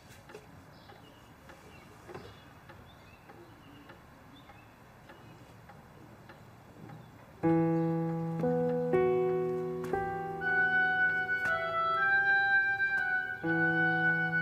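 Quiet room tone for about seven seconds, then soft piano background music comes in: a slow melody over a held low note.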